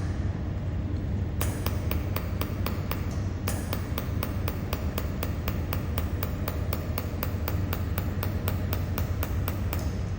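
Pulsed mold-repair laser welding machine firing, a sharp tick with each laser pulse at about five a second, with one short break, over the steady low hum of the running machine.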